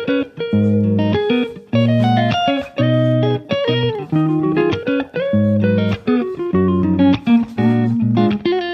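Background music: a plucked guitar tune with bass, in a steady rhythm.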